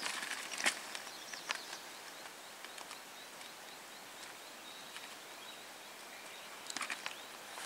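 Quiet riverside ambience: a steady faint hiss with faint bird calls. A few short sharp clicks or crunches about a second in and again near the end.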